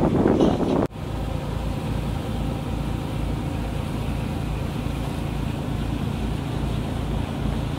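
Tour boat's engine running steadily, a low hum under an even hiss of wind and water as the boat cruises along the river.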